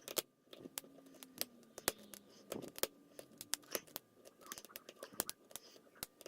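Lock pick and tension wrench working the pins of a pin-tumbler kik cylinder: a string of irregular small metallic clicks and light scrapes as the pins are picked.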